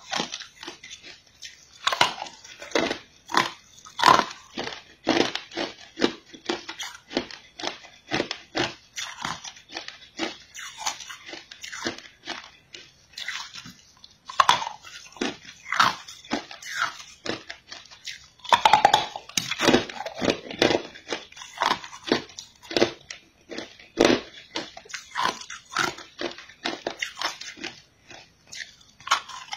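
Teeth biting into and crunching a piece of green-tinted ice, heard very close: a run of sharp cracks and crunches, several a second, with a short lull about halfway through.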